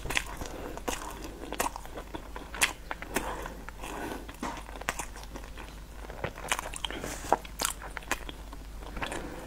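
Close-up chewing of a crunchy cookie, mouth closed and near a clip-on microphone: irregular sharp crunches and crackles with wet chewing between them.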